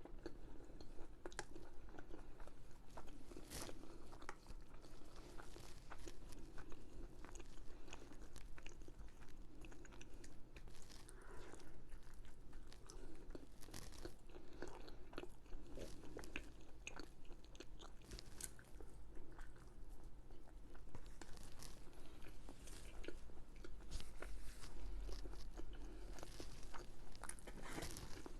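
A person eating close to the microphone: chewing and biting, with many short crunches and mouth clicks throughout.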